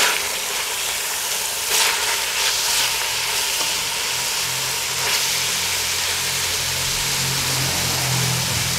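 Thin-sliced beef sizzling as it fries in a cast-iron Dutch oven, with a wooden spatula stirring and scraping through the strips a few times. A low steady hum comes in about three seconds in.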